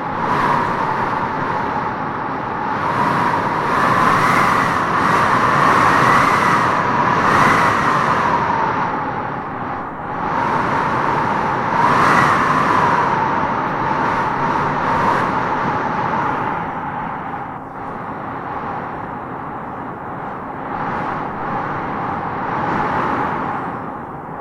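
Howling wind gusting through trees: a steady rush with a hollow whistling howl that swells and falls in gusts, strongest about four to eight seconds in and again around twelve seconds.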